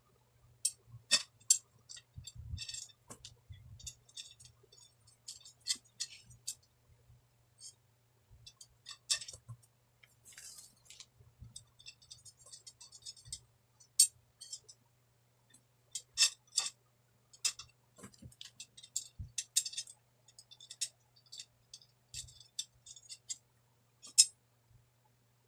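Steel spokes clinking and ticking against one another and against the hub and rim as they are laced into a motorcycle wheel: a string of irregular, sharp metallic clicks, with a faint steady low hum underneath.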